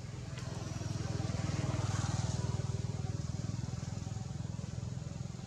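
A motorcycle engine running as it passes by, growing louder to about two seconds in and then slowly fading.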